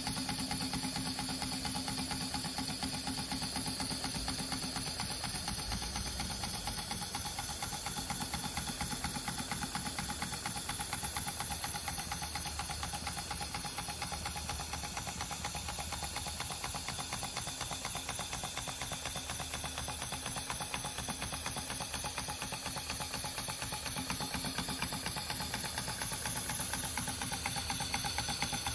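Stuart Score twin-cylinder model steam engine running steadily on compressed air: a fast, even beat of air exhausting from the cylinders with light mechanical clatter and hiss.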